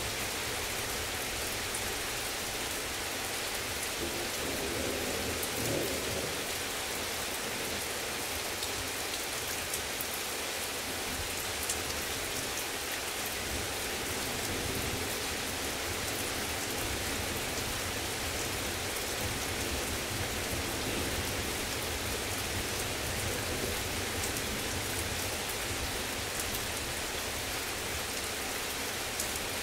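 Heavy rain falling steadily, with scattered drop ticks and a low rumble of thunder about five seconds in.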